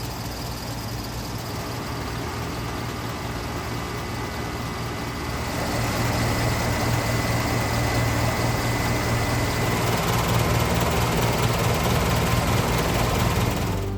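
1989 Carrier TECH 2000 heat pump outdoor unit running during its defrost cycle: a steady low compressor hum over a rush of noise, which grows louder and noisier about five seconds in, with a thin high whine added.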